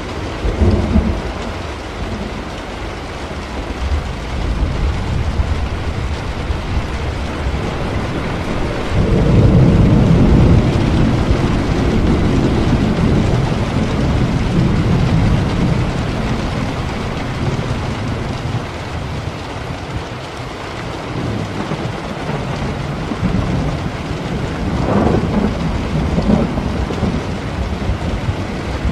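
Steady rain with rolling thunder: a brief rumble at the start, a long, loud rumble from about a third of the way in lasting several seconds, and another softer roll near the end.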